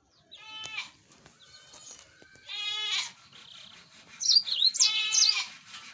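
A goat bleats three times, each a short wavering cry, while canaries give high chirps that sweep up and down between them.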